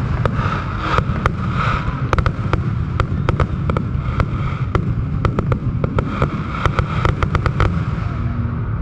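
Aerial fireworks bursting: a string of sharp bangs and crackles throughout, with a quick run of reports about seven seconds in.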